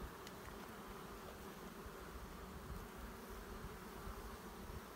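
Steady hum of a honey bee colony buzzing around an opened hive and a lifted brood frame.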